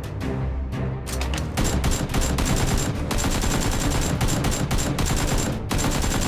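Rapid, continuous machine-gun-style gunfire sound effects starting about a second in, with background music underneath.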